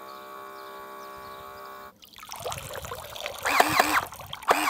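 Electric water gun's built-in pump humming steadily as it draws pool water in through its submerged tip. About two seconds in, the hum stops and water splashes and trickles from the gun, with a louder pitched sound that swoops up and down several times.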